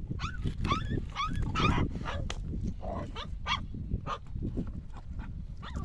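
Animals calling: many short, high, overlapping cries that slide up and down in pitch, several a second, over a steady low rumble.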